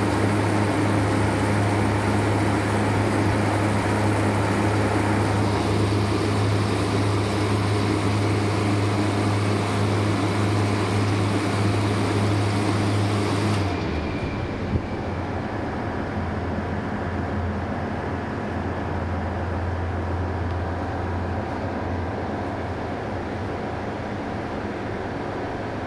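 Refrigeration condensing unit running: a semi-hermetic compressor and the condenser's twin fans make a steady low hum with a hiss over it. About fourteen seconds in, the hiss drops away suddenly and the hum carries on a little quieter and lower.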